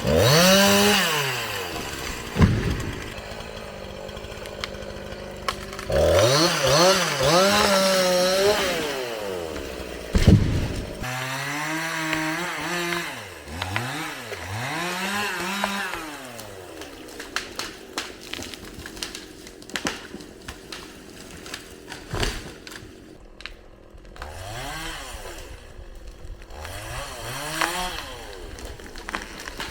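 Chainsaw engine during tree felling, revving up and easing off again and again, with a few sharp knocks.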